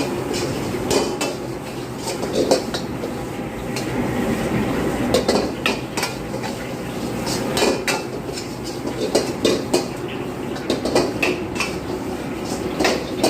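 A metal spatula scraping and clanking against a pan in irregular strokes as fried rice is stir-fried, over a steady hiss.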